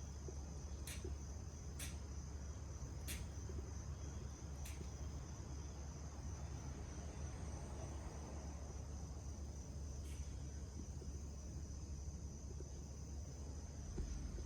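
Crickets calling in a steady high-pitched trill over a low rumble, with several short sharp clicks in the first five seconds and one more near ten seconds.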